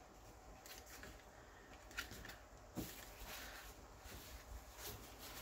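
Faint rustling and rubbing of hands pressing a glued paper strip onto a kraft paper pocket, then going over it with a paper napkin, with a couple of small taps about two and three seconds in.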